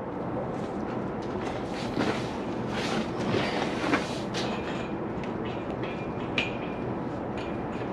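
Metal D-rings clinking and clanking as they are hooked up on the tarp frame's pipe: a handful of sharp metallic clicks, some ringing briefly, over a steady low rumble of running machinery.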